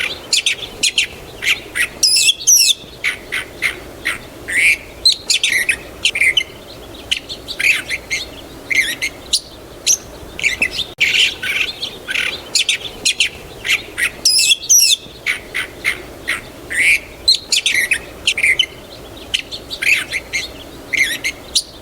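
Several small birds chirping in quick, short, high calls, one after another with brief pauses. The recording repeats itself about every twelve and a half seconds.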